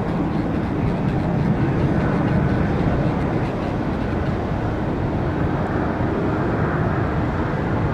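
Jet airliner engines running: a steady rush of noise, strongest in the low and middle range, with a faint steady hum coming in near the end.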